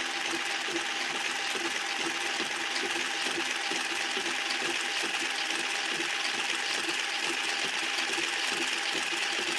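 Homemade centrifugal-drive rocking car running: a small electric motor turning a plastic gear train with an off-centre weight, a steady whirring with rapid rattling ticks.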